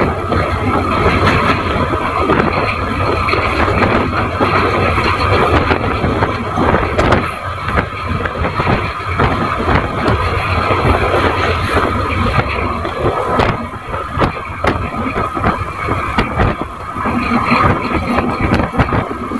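Passenger train running at speed, heard from an open coach window: a steady rumble of the coaches with a constant clatter of wheels on the track, easing briefly a few times.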